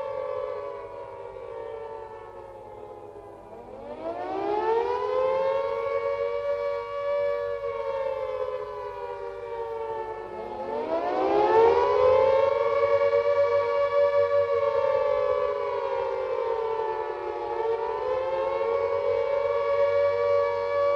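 Gents' Carter air-raid siren sounding the rising and falling wail of the air-raid warning. The pitch sinks at first, climbs again about three and a half seconds in and once more near the middle, holds, then sags. It sounds as two close tones together.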